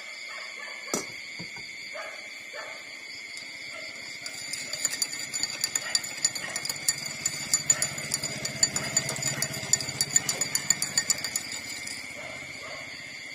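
Newborn puppies suckling at their mother's teats: a fast, irregular run of wet clicks and smacks that starts about four seconds in and stops near the end. A single louder click falls about a second in, and a steady high-pitched hum runs underneath throughout.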